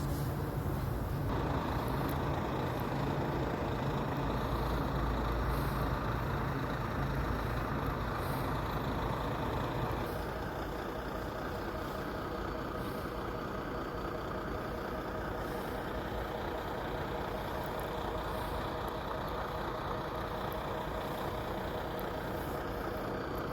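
Volvo engine running steadily, settling to a slightly quieter, lower running about ten seconds in.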